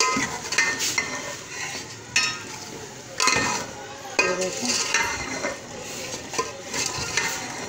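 A metal spoon stirring and scraping frying keema, tomatoes and ground spices in an aluminium pot, with irregular knocks and scrapes against the pot over a steady sizzle. The spices are starting to stick to the pot.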